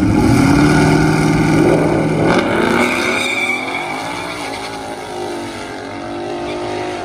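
A V8 Mustang drag car held at steady revs on the start line, then launching about two and a half seconds in and accelerating hard down the strip, its engine note rising, dropping once at a gear change and rising again as it pulls away and fades.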